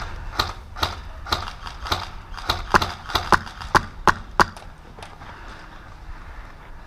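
Airsoft rifle firing single shots as sharp clicks, about three a second and slightly irregular, for around four and a half seconds, then it stops.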